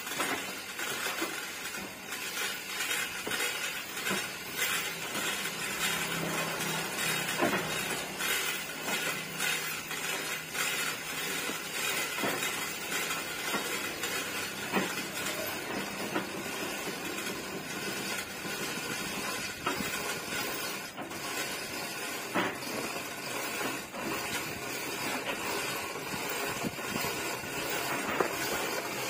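Irregular knocks and clatter of cargo being handled and loaded onto a truck, over a steady hiss.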